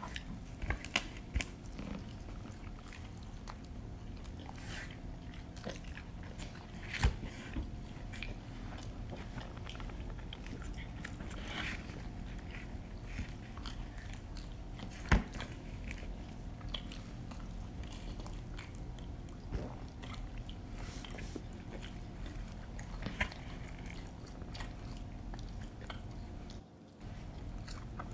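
Close-miked eating of pizza: wet chewing, lip smacks and crust crunches, with sharp mouth clicks scattered through, the loudest about a second, seven seconds and fifteen seconds in. A steady low hum runs underneath.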